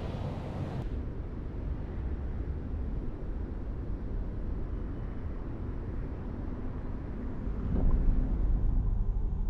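Steady low rumbling outdoor noise with no music or voice, growing louder near the end.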